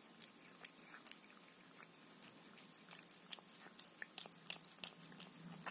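Cat eating wet pâté from a foil tray: faint, irregular wet clicks of licking and chewing, several a second, as its tongue works at chunks it finds hard to lift.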